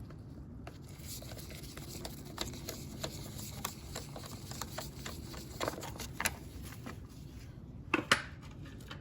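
Light clicks and taps of plastic parts being handled as the air filter cover of a Briggs & Stratton lawnmower engine is opened and the filter taken out, with a louder double knock near the end.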